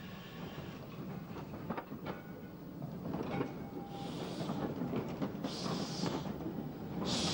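Steam locomotive working slowly: low rumble and clanking, then from about halfway, hissing exhaust beats roughly every second and a half, growing louder.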